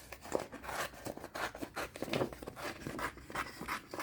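Small scissors cutting decorative paper, a run of short irregular snips mixed with paper rustling.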